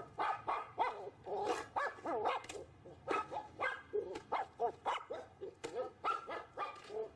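A dog barking and yapping over and over, in a quick, irregular run of short calls that bend in pitch.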